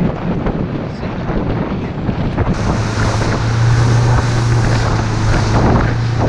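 Wind buffeting the microphone, then, about two and a half seconds in, a motorboat running at speed: a steady engine drone with spray hissing off the hull and wind noise over it.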